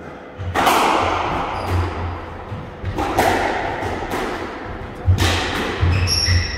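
Squash rally: the ball cracks off rackets and walls about every two seconds, each strike echoing in the court, with players' footsteps thudding in between. A sneaker squeaks on the wooden floor near the end.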